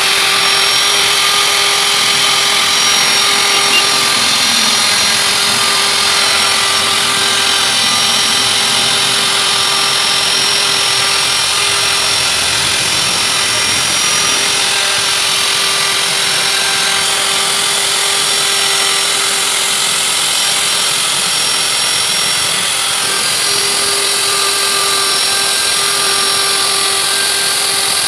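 Handheld electric router running at steady speed with a high whine, its carving bit cutting grooves into a wooden board.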